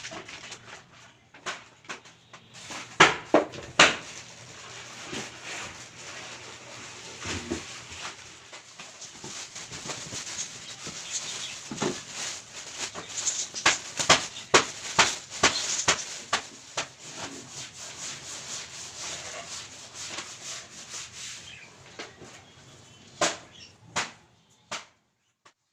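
Handling of product packaging during an unboxing: cardboard and plastic rubbing and rustling, with many sharp clicks and knocks. The handling stops abruptly near the end.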